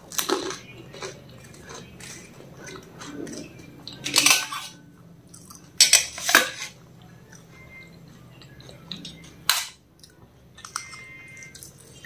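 A golgappa being crunched and chewed, with several sharp clinks and scrapes of a steel spoon on steel plates, the loudest about four and six seconds in.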